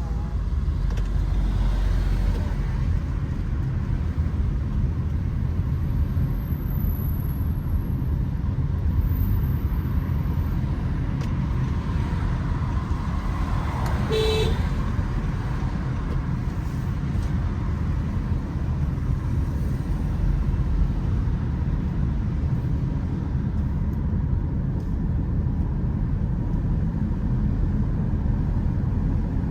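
Steady road-traffic rumble, with a short car horn toot about halfway through.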